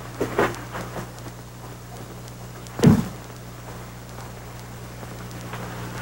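Light clinks and knocks as a drinking glass is handled at a wooden bar cabinet, then one loud, solid thud about three seconds in, over a steady low mains hum from the old recording.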